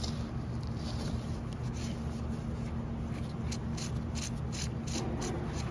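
Allen key clicking and scraping on the cap screw of a tractor auxiliary hydraulic pump as it is worked loose, with a run of light metallic ticks, about three a second, in the second half. A steady low hum underlies it.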